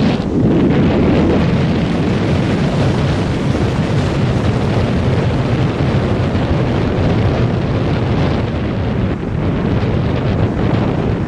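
Strong wind buffeting the microphone, a steady rumbling noise, with the sea washing against a rocky shore underneath.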